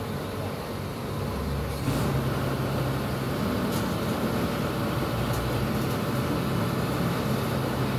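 Heavy diesel engine idling steadily, its low hum growing louder about two seconds in and then holding.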